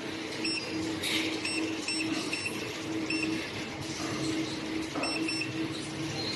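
Sheet-counting machine running with a steady hum, with short high beeps coming every half second to a second.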